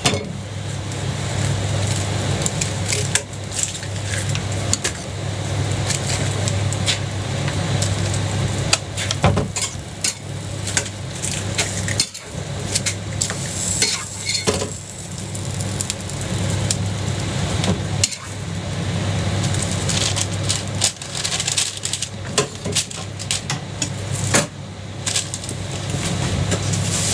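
A jianbing pancake cooking on a griddle: sizzling, with the spatula and scraper scraping and tapping against the griddle many times over a steady low hum.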